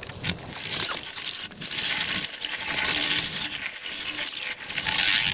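Rushing, splashing water noise that swells over the first couple of seconds and stays loud.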